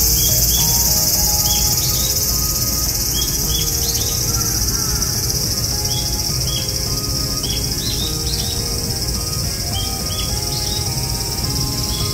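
A steady, high-pitched insect chorus buzzes throughout, with short chirps scattered over it. Under it runs soft background music, a slow melody of held notes.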